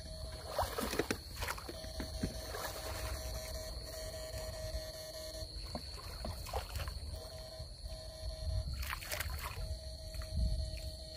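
Electric fish shocker in use in shallow water: a steady high whine throughout, and a lower hum that switches on for a few seconds and off again about three times as the shocker is triggered, over sloshing and scattered splashes from wading.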